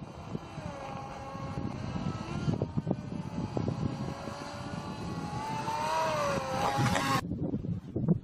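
Electric motor and propeller of an RC microlight trike whining, its pitch wavering and the sound growing louder as the model flies in low. The whine cuts off abruptly about seven seconds in as the power is cut for landing. Gusty wind rumbles on the microphone throughout.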